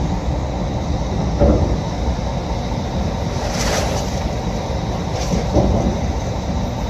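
Steady low rumble of a car ferry under way in heavy seas, with a brief hissing rush about three and a half seconds in.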